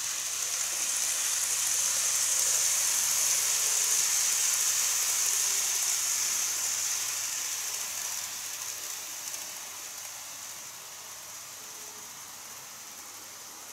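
KATO N-scale model train running on an elevated plastic viaduct track: a steady high-pitched hiss and whir from its motor and wheels that swells as it passes and fades away after the midpoint.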